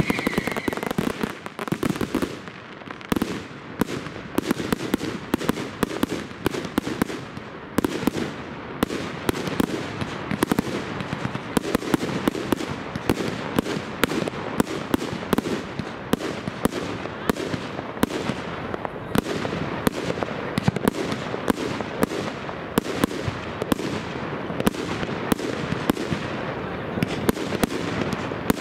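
Aerial fireworks going off: a dense, unbroken string of sharp bangs several times a second from bursting shells, over a steady low rumble. A short falling whistle fades out right at the start.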